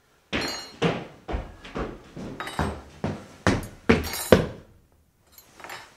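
A quick, uneven series of sharp knocks, about ten in four seconds and the loudest about four seconds in, then a few fainter ones near the end.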